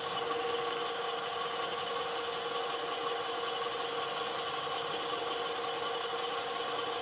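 Wood lathe running steadily at speed, its motor giving an even whine made of several fixed tones.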